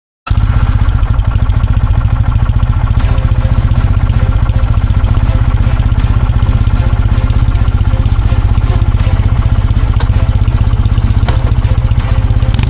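Kawasaki W650's air-cooled parallel-twin engine running steadily with a rapid, even exhaust beat, loud and close. It comes in abruptly just after a moment of silence.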